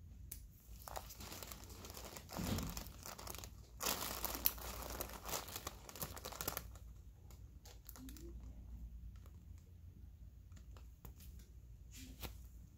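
Crinkling and rustling handling noise, loudest from about four seconds in to six and a half, then a few faint clicks.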